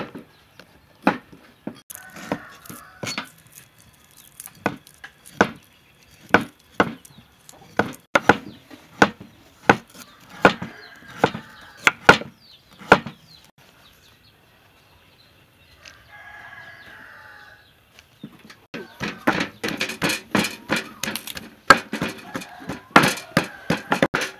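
Cleaver chopping a root on a round wooden chopping board, separate sharp knocks about one or two a second. After a lull, in the last several seconds, a wooden pestle pounds garlic cloves in a wooden mortar with rapid, dense knocks.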